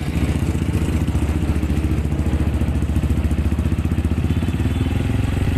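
Honda dirt bike's single-cylinder engine idling through an aftermarket stainless BYS47 slip-on silencer. It gives a steady, fast, even exhaust beat.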